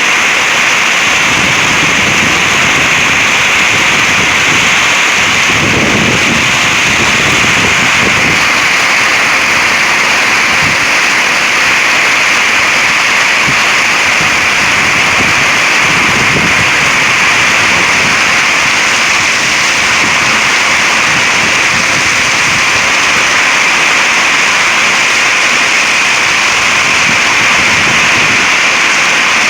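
Heavy thunderstorm rain pouring down at the onset of a microburst: a loud, dense, steady hiss, with a couple of brief low rumbles about six and sixteen seconds in.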